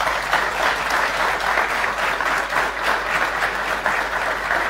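Seated audience applauding steadily: many hands clapping together.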